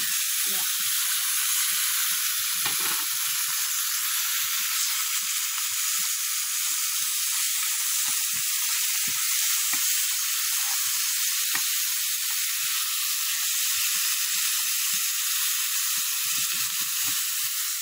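Raw chicken pieces sizzling in hot oil in a frying pan with browned garlic and onion: a steady frying hiss with scattered small pops.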